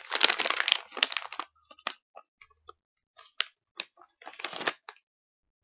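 Crinkling and crackling, dense for about the first second and a half, then scattered single crackles that stop about five seconds in.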